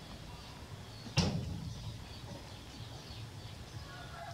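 One sharp knock about a second in, the loudest sound, with a short ring after it, over a low background with faint high chirps.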